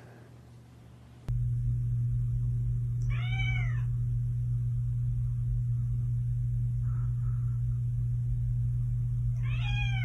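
A domestic cat meows twice, each a single call that rises then falls in pitch: once about three seconds in and again near the end. Under it a steady low hum starts abruptly about a second in.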